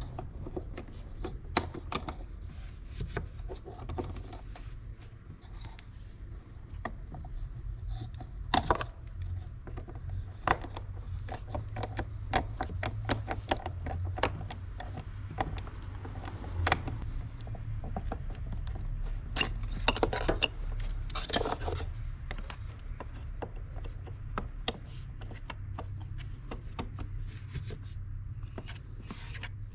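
Hand tools clicking, tapping and scraping on metal and plastic at irregular moments as the Torx screws of a mass air flow sensor are worked loose, over a low steady hum.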